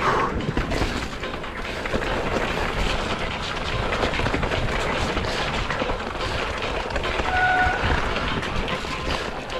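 Mountain bike rattling and clattering as it rolls fast over rough trail ground, with a dense run of small knocks from the chain and frame. A short steady whine about seven and a half seconds in.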